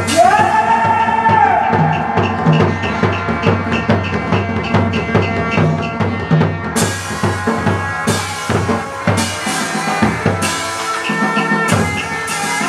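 Hát bội ensemble music: a fast, steady drum beat under a held melodic note near the start, with sharp, bright strikes joining about halfway through.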